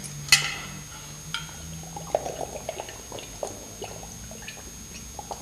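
A man drinks from a water flask, gulping and sloshing as he drains the last of the water, with a sharp click just after the start.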